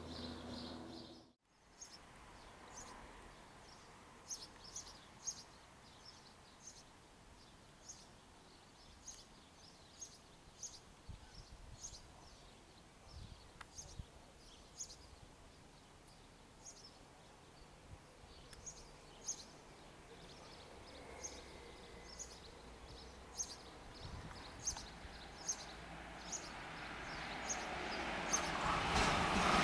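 A light propeller plane drones overhead for a moment before an abrupt cut. Then come faint, repeated high bird chirps, about one or two a second. Over the last few seconds the rushing noise of an approaching ÖBB Cityjet electric train grows steadily louder.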